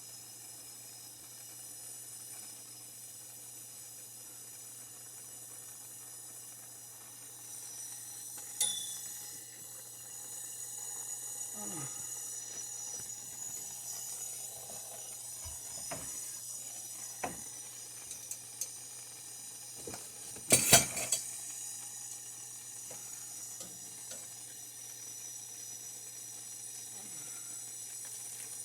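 Plumbing tools and fittings being handled: a steady faint hiss with scattered sharp metal clicks, and a short burst of loud metal clattering about twenty seconds in.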